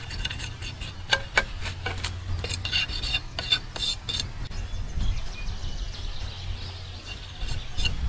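Knife blade scraping and chipping at a green bamboo stalk: a quick run of short scrapes and clicks in the first half, sparser and quieter later.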